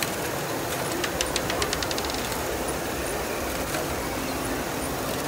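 LEGO ball-contraption modules running with a steady mechanical whirr; about a second in, a quick run of about ten small clicks, coming closer and closer together, as balls clatter through the machine.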